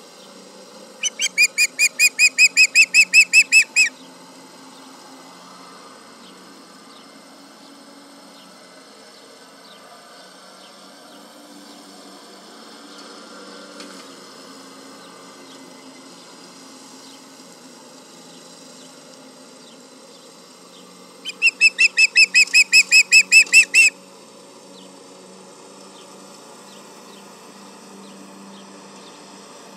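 Osprey alarm calls: two bouts of rapid, repeated whistled chirps, about six a second, each lasting about three seconds and growing louder. The first comes about a second in, the second about twenty seconds later.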